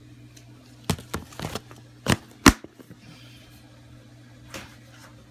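A handful of sharp clicks and knocks from a plastic reptile tub being handled, bunched in the first half, the last and loudest about two and a half seconds in, with one faint knock later. A steady low hum runs underneath.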